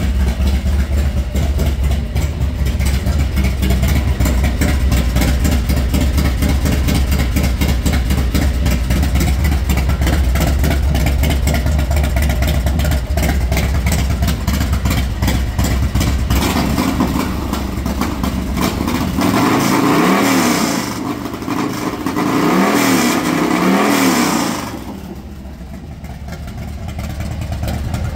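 Air-cooled V-twin engine of a 2006 Iron Horse chopper running after a cold start, with a steady lumpy idle. About two-thirds of the way through it is revved up and back down three times, and then it drops back to idle, a little quieter.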